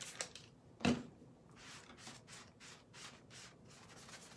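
A bumpy scrubber sponge rubbing back and forth over a wet stencil to wash off the paste, in soft strokes about three a second. There is a single knock about a second in.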